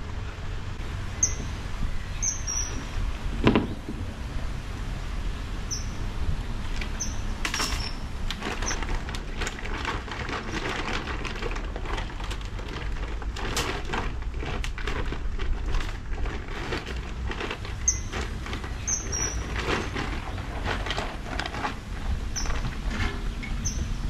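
Backyard ambience: a small bird repeating short, high chirps every second or two over a steady low rumble. There is a single thump about three and a half seconds in, and a run of rustles and clicks through the middle.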